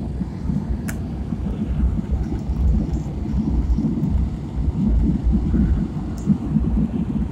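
Steady low rumble of engine and airflow noise inside a jet airliner's cabin in flight, with a faint click about a second in.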